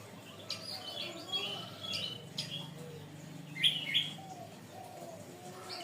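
Domestic canary singing in short, scattered chirping phrases, with the loudest pair of notes a little past the middle.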